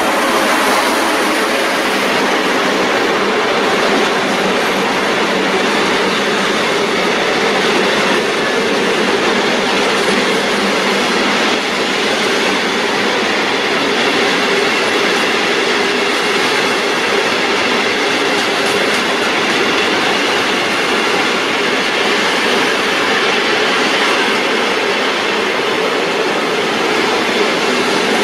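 An electric-hauled freight train passing close by: a long, steady rumble and clatter of its wheels running on the rails, even in loudness throughout.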